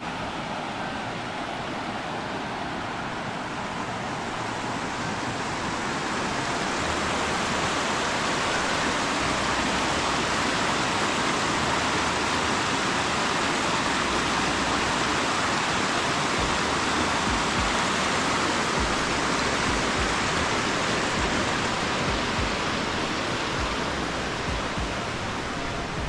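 Steady rush of flowing water, growing louder over several seconds and easing slightly near the end.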